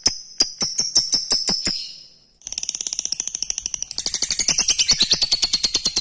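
Lovebird 'ngekek' song: sharp, ringing metallic notes that come faster over about two seconds, then a brief gap, then a long rapid rattling chatter of about ten notes a second.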